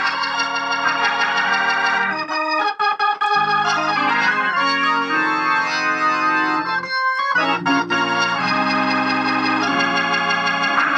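Hammond organ playing sustained chords through an amplifier that has just had its cheap capacitors replaced, as a sound check. The chords change every second or two, with short breaks about two and seven seconds in.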